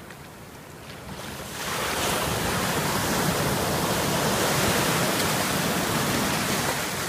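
Ocean surf breaking and rushing in around a wading dog. It swells to a loud, steady rush about a second and a half in.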